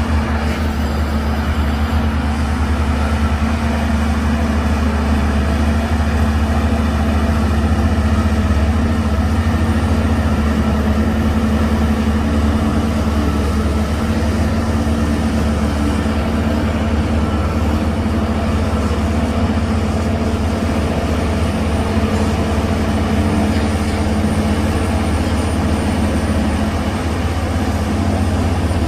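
Heavy earthmoving machine's diesel engine running steadily, with a deep low drone.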